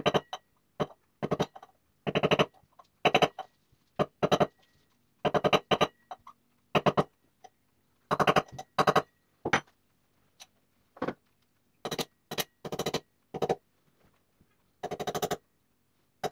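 Hammer striking a long steel bar held on a new wheel bearing, tapping the bearing into a Suzuki GS500 rear wheel hub. The blows are sharp and come in an uneven run, roughly one or two a second, with a couple of short pauses.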